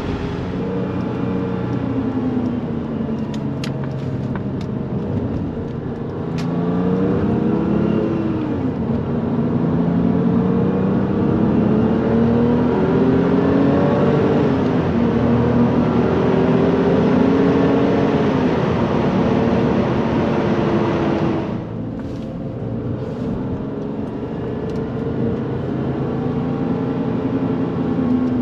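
1996 Porsche 993 Turbo's twin-turbo air-cooled flat-six heard from inside the cabin, accelerating through the gears. The engine note rises and then drops at each upshift. About 21 seconds in it changes to a quieter, steadier cruise.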